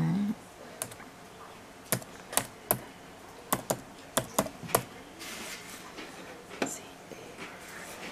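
Typing on a computer keyboard: about ten separate keystrokes at an uneven pace over the first five seconds, then one more near the end.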